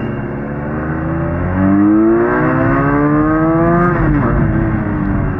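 Benelli 300 motorcycle's parallel-twin engine accelerating hard, its note rising for about two and a half seconds, then dropping suddenly about four seconds in as the throttle is closed or a gear is changed, and running on at a lower pitch.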